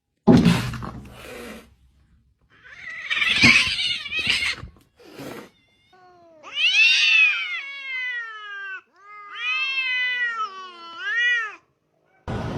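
A sudden thump at the start, then a domestic cat yowling: one long drawn-out meow that rises and falls, followed by a wavering yowl of several rising calls.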